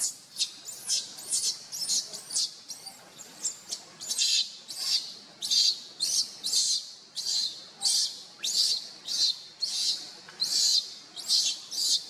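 Baby macaque screaming over and over in short high-pitched cries, about two a second, while held by its mother.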